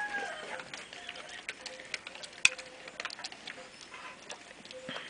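A cane corso eating, with irregular crisp clicks and crunches as it takes up dry food from the floor; one click about two and a half seconds in is louder than the rest.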